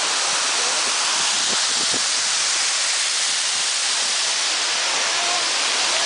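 Steady rush of a waterfall pouring down a rock face into a pool, an even roar of falling water.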